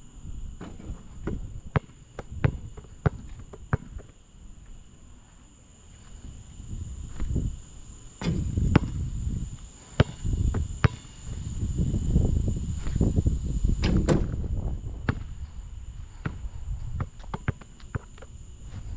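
A basketball bouncing on a hard court: sharp, loud bounces of a dribble, evenly about every half second at first and then in irregular runs. A low rumble swells in the middle stretch, and a steady high chirring of insects, likely crickets, runs underneath.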